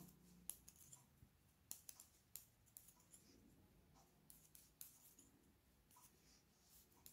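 Faint, irregular clicks and ticks of knitting needles knocking together as stitches are purled one by one.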